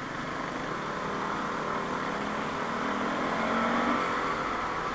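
Yamaha NMAX scooter's single-cylinder engine running under way, with wind and road noise. The engine note rises for a couple of seconds and then drops off about four seconds in.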